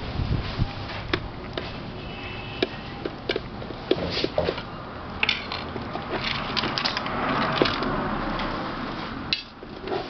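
Scattered clicks and knocks from a Philco food processor's plastic base being worked with a long screwdriver to take out its screws, then lifted and tilted, over steady background noise.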